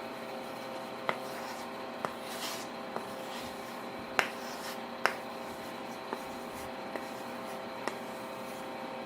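A series of about eight sharp, short clicks or taps, roughly a second apart and uneven, over a steady background hum.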